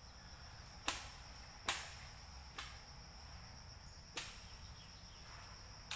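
A blade chopping into a bamboo stem, five sharp chops a second or so apart, over a steady high-pitched insect drone.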